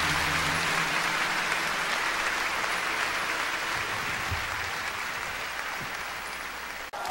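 Live concert audience applauding at the end of a song, over the last held note of the band, which dies out under a second in. The applause slowly fades and is cut off just before the next song starts.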